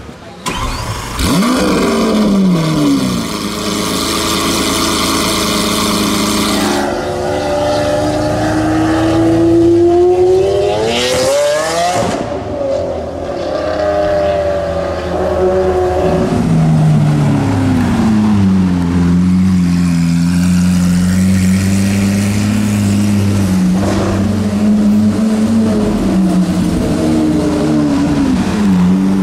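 Lamborghini Aventador SV's V12 through a Capristo straight-pipe exhaust, loud. It opens with a harsh, noisy roar, then revs up with the pitch climbing to a peak about eleven seconds in and dropping away. From there it runs at lower, steadier revs with small rises and falls.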